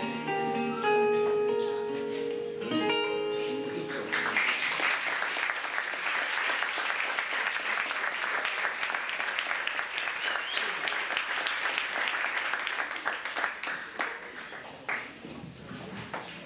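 Acoustic guitar playing the last plucked notes of a song, then about four seconds in, audience applause that carries on for some ten seconds and dies away near the end.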